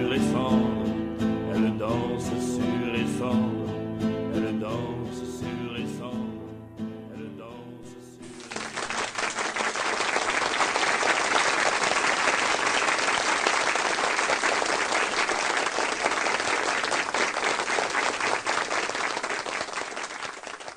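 The song's guitar accompaniment plays its last notes and fades. About eight seconds in, applause starts abruptly, holds steady and fades out near the end.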